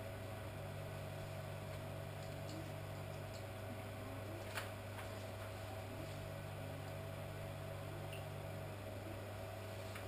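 Steady electrical hum of reef aquarium equipment such as pumps and lights, with a second low tone that comes on for a few seconds twice, and a single faint click about halfway through.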